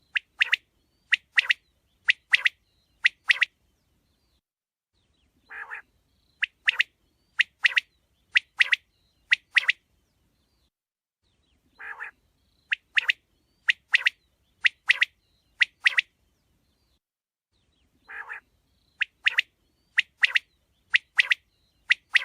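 Quail calling in repeated bouts: each bout opens with a low, soft note followed by about four pairs of sharp, high calls. The bout repeats about every six seconds.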